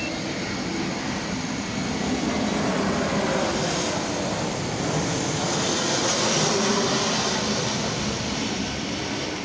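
Jet aircraft passing low overhead: a steady rushing roar that swells to a peak about six or seven seconds in, then starts to fade.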